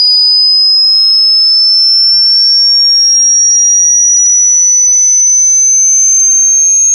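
A single loud, high-pitched electronic pure tone gliding slowly and steadily upward in pitch: a sine-wave sweep played as a ringtone.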